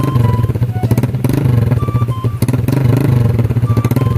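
Honda Click scooter's single-cylinder engine idling steadily through an aftermarket Akrapovic slip-on muffler on a newly made elbow pipe.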